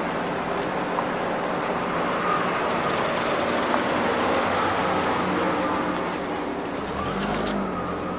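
A car running and driving off: a steady engine and road noise, with a stronger low rumble about seven seconds in.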